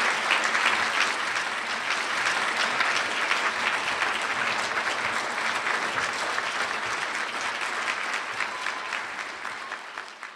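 Audience applauding steadily, the clapping gradually dying away toward the end.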